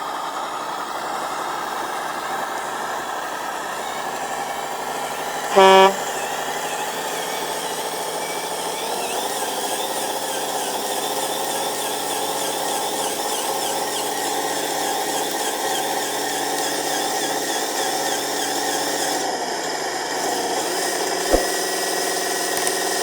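Radio-controlled model logging truck running steadily with a whine. A short, loud horn blast comes about six seconds in, and a single sharp click near the end.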